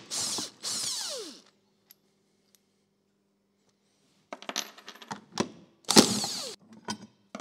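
Cordless power driver spinning bolts out of a metal-shaping machine's plate, in short runs that wind down in pitch as the trigger is let go. After a pause of about three seconds, loose bolts and washers clatter and clink on the bench, and another short run of the driver comes about six seconds in.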